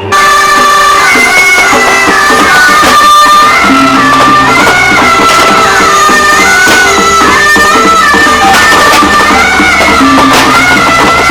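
Loud music that starts abruptly, a wavering high melody over steady held low notes.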